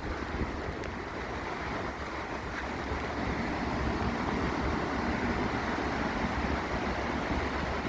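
Steady rush of the Mohawk River in flood pouring over Cohoes Falls, with wind buffeting the microphone.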